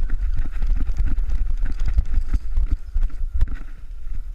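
Running footsteps through heather and rough grass: an irregular run of quick footfalls with the rustle of the vegetation, over a heavy low rumble on the microphone.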